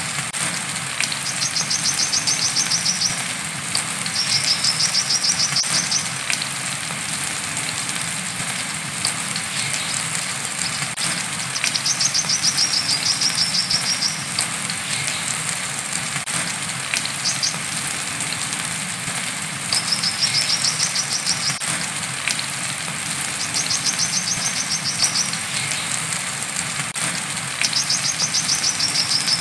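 Brown-throated sunbird (kolibri kelapa) singing its 'wiceh' song: high, rapid trills about two seconds long, repeated every few seconds, one short burst among them. Under it runs a steady hiss of falling rain.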